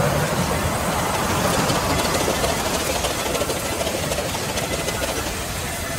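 Vertical band saw running and ripping a wooden plank as it is fed through: a steady mechanical din that eases slightly toward the end.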